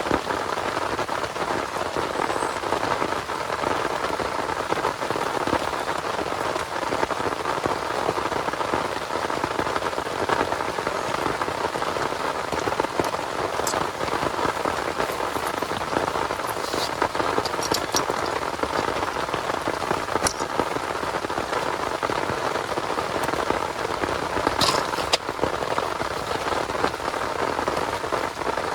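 Heavy rain falling steadily, an even, unbroken patter. A few sharp ticks of drops stand out in the second half.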